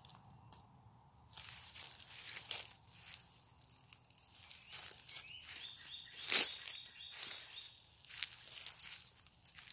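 Dry fallen bamboo leaves crunching and rustling in irregular bursts as they are stepped on and disturbed, with the loudest crunch about six seconds in.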